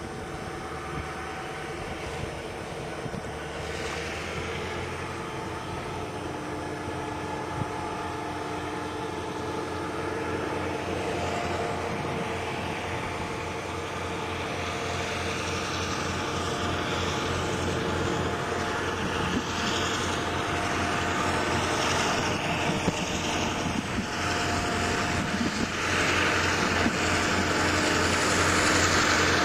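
Diesel locomotives of a Union Pacific local approaching, a steady engine drone with a low rhythmic throb that grows steadily louder.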